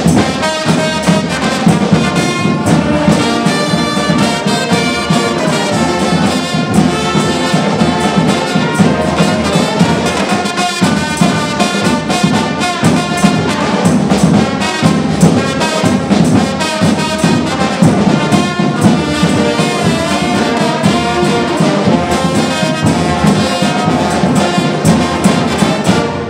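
Live brass band playing up-tempo: trumpets, trombones and saxophones over a sousaphone and a bass drum keeping a steady beat. The band stops near the end.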